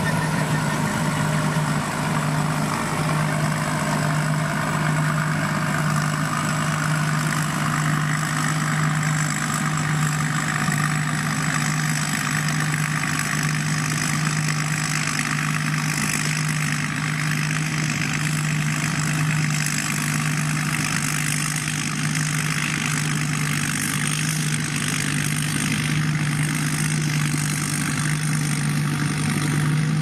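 Rice combine harvester's diesel engine running steadily while it cuts and threshes rice. A constant low hum sits under a broad rush of machinery noise, with a faint high whine.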